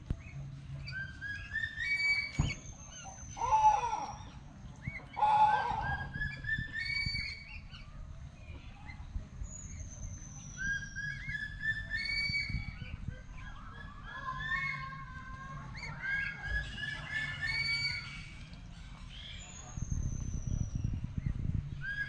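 A flock of lesser whistling ducks calling: repeated shrill whistled notes, some in quick rising runs and some as long falling whistles. Two louder, rougher calls stand out about four and six seconds in, over a steady low rumble.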